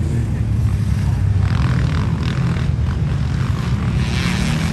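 Dirt bike engines running on the motocross track, a steady engine drone with louder swells as bikes accelerate about a second and a half in and again near the end.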